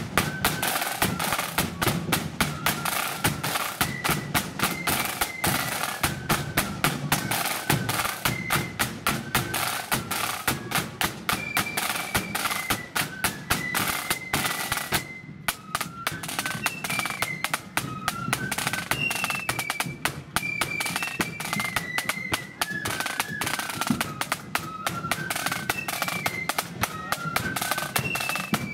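Marching flute band playing a tune: rapid snare drum strokes and a big bass drum beating under a high flute melody. The sound drops out for a moment about halfway through.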